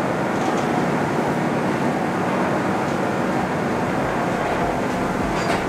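Diesel engine of a tour coach running as the coach drives slowly onto a car ferry's deck, a steady rumble. Low thudding joins in about three and a half seconds in.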